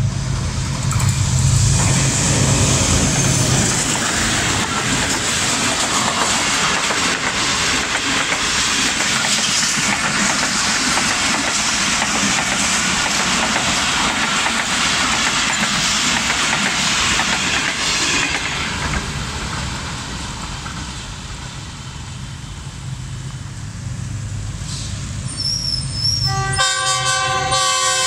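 A diesel-hauled passenger train passing close at speed: the locomotive's engine at first, then a long string of coaches rattling and clicking over the rail joints, easing off after about 19 seconds. Near the end a second approaching diesel locomotive sounds its horn, several steady tones at once.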